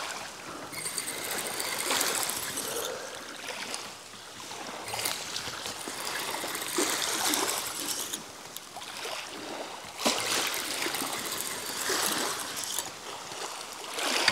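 Small waves washing in and out over a shingle beach, a hissing wash that swells every two or three seconds.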